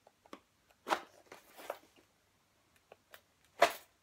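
Cardboard shipping box being worked open by hand: several sharp crunches and clicks of the cardboard with some rustling, the loudest about a second in and near the end.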